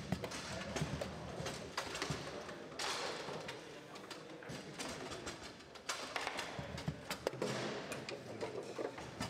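Foosball being played: the ball is struck by the figures on the rods and knocks against the table, giving a string of irregular sharp clacks and knocks, with the rods rattling as they are shifted and spun.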